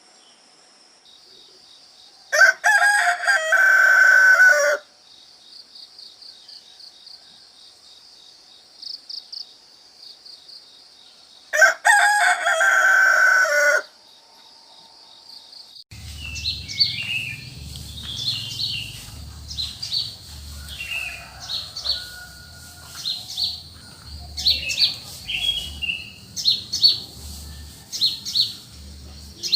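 A rooster crows twice, each crow about two seconds long, over a steady high insect trill. About halfway through, the sound changes to small birds chirping repeatedly over a low rumble.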